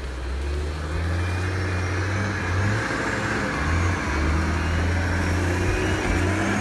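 Nissan Patrol GR 4x4's engine pulling under load as it crawls through deep snow, the revs rising and dropping several times. A faint high whine rises and falls above the engine note.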